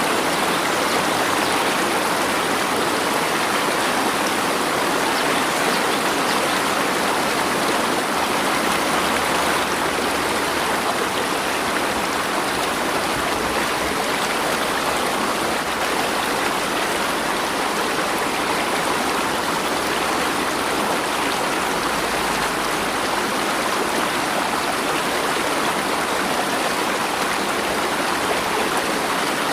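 Water flowing in a stream, a steady, even rushing with no separate splashes or drops.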